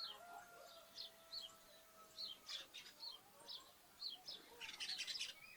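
Sparrows and other small birds chirping: short falling chirps repeating about twice a second, then a burst of rapid chattering chirps near the end.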